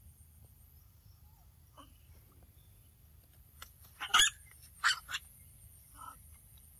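Macaque calls: a handful of short squealing cries, the loudest a cluster about four seconds in, with two more soon after and a fainter one near the end, over a steady high-pitched whine.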